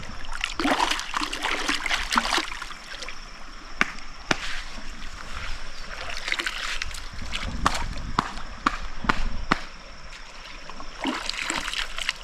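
River water running and splashing, with scattered short sharp splashes and clicks.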